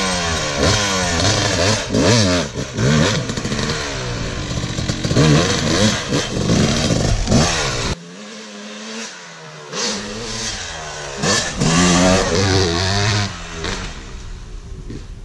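Dirt bike engines revving hard under riding, the pitch climbing and dropping again and again with throttle and gear changes. About eight seconds in the sound changes abruptly to another stretch of the same kind of revving.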